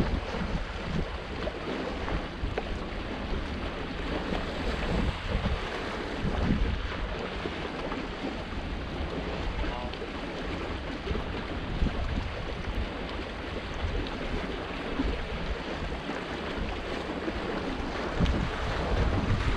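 Wind buffeting the microphone over small sea waves washing against the boulders of a rocky seawall, with a louder wave splash near the end.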